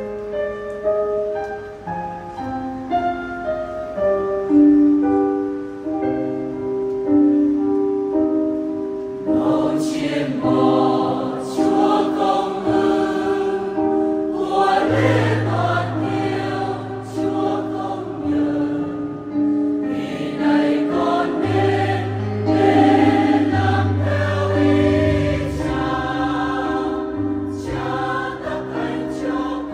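Keyboard introduction playing the melody, then a mixed choir of men and women comes in about nine seconds in, singing a Vietnamese Catholic hymn in parts over the keyboard accompaniment.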